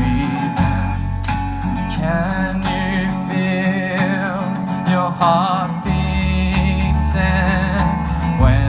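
Acoustic guitar strummed in steady chords under a singing voice holding long, wavering notes without clear words.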